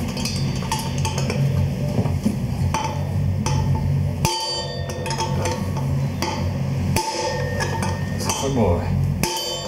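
Hammer blows on a steel drift against a motorcycle's rear wheel hub, driving out the worn-out wheel bearing; each sharp metallic knock rings briefly, irregularly about one to two a second, over background music.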